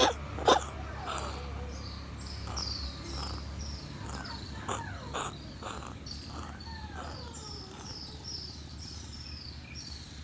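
Birds calling and chirping, a short high falling note repeated over and over, with a few lower falling calls among them. Two sharp, loud sounds half a second apart right at the start are the loudest thing heard.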